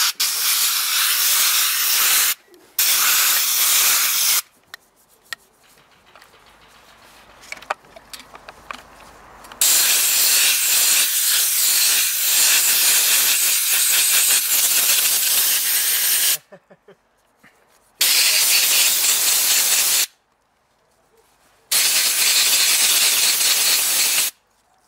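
A hand-held pressurized spray wand hissing in five bursts of a few seconds each, the longest about six seconds, as it blasts the filter element from an ASh-82T radial aero engine clean.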